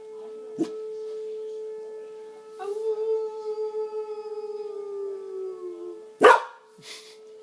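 A dog howls once for about three seconds, its pitch wavering and then sliding down at the end. Under it runs the steady tone of a tornado siren. A single loud knock comes near the end.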